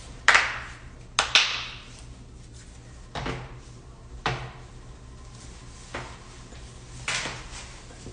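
Joints cracking during chiropractic adjustments: about seven sharp pops at irregular intervals of one to two seconds, two of them close together, and some trailing off over about half a second.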